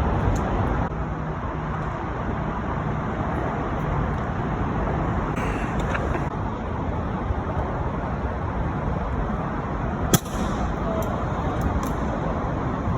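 Steady rumble of city traffic, with a single sharp knock about ten seconds in.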